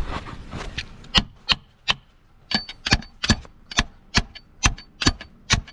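Repeated sharp metal knocks, about two to three a second and starting about a second in, several leaving a short high ring: a metal tool striking a corroded starter to drive it off the transmission it has rusted onto.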